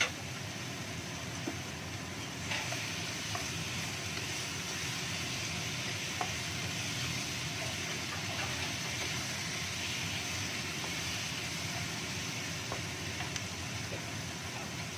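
Chicken pieces sizzling in hot oil and spice paste in a wok, a steady hiss that grows louder about two and a half seconds in. A few light knocks of the wooden spatula against the wok are heard now and then.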